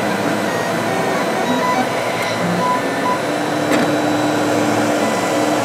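Monoprice Maker Select V2 3D printer printing the first layer of a 3DBenchy. Its stepper motors sound in short tones that keep changing pitch as the print head moves, over a steady fan whir.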